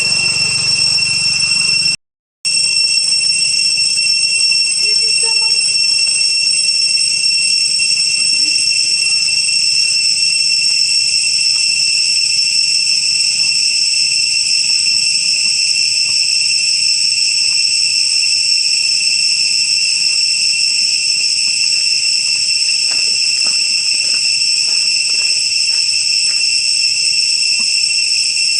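A loud, steady, high-pitched whistle-like tone with overtones, held at one pitch without change. It cuts out briefly about two seconds in. Faint short clicks sound beneath it in the last third.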